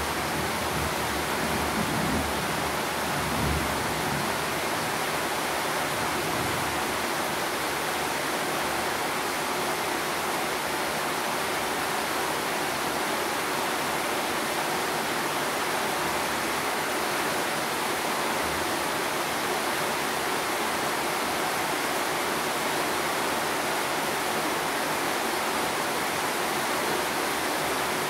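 Steady rain falling, an even hiss that holds at one level throughout, with a few soft low thumps in the first few seconds.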